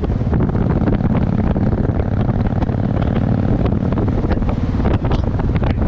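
Motorcycle engine running steadily while riding along at road speed, with wind buffeting the microphone.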